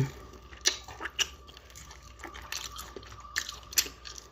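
A person chewing a mouthful of crispy fried chicken close to the microphone: irregular wet smacks and clicks a few times a second.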